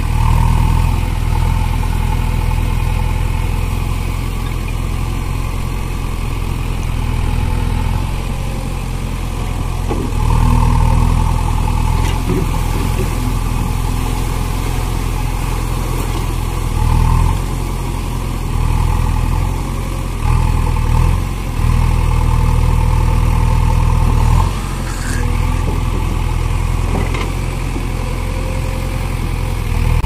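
JCB 3DX backhoe loader's diesel engine idling, then revving up in several short swells as the front loader bucket is lowered and raised.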